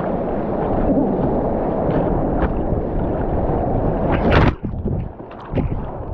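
Rushing whitewater rapids as a kayak runs through them, a steady churning roar of water close to the microphone. About four seconds in, a wave breaks over the bow with a loud splash, and the sound dips and goes muffled for a moment as water covers the microphone.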